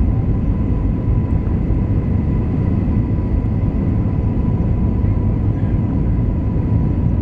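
Airbus A320 cabin noise on approach: a steady low rumble of engines and airflow through the fuselage, with a faint steady high whine over it.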